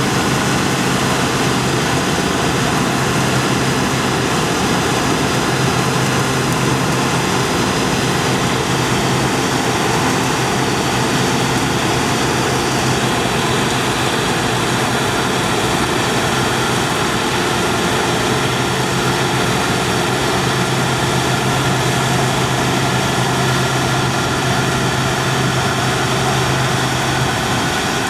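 New Holland combine harvester running steadily while cutting barley: a constant engine drone and machinery noise with a faint high whine.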